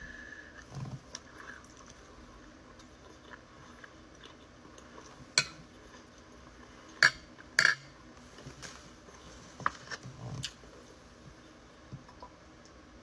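A metal fork clinking against a plate: a few sharp, separate clinks, the loudest three between about five and eight seconds in, with fainter taps later.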